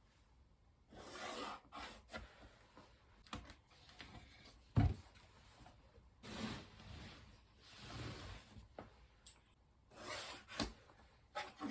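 Intermittent rubbing and scraping on wood, in short strokes of about half a second each, with one sharp knock about five seconds in.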